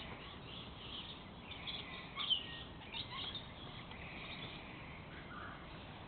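Staffordshire bull terrier puppies play-fighting, giving short high-pitched squeaks and yips at irregular moments, the loudest about two seconds in.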